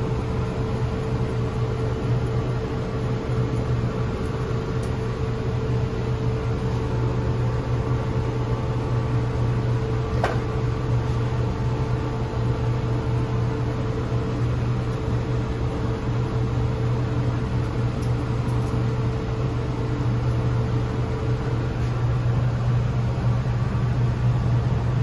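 A steady low mechanical hum, with a fainter higher tone over it that stops near the end, and a single sharp click about ten seconds in.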